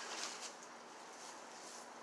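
A wet magnet-fishing rope being hauled in hand over hand through gloved hands: a brief swish in the first half second, then faint, steady outdoor hiss.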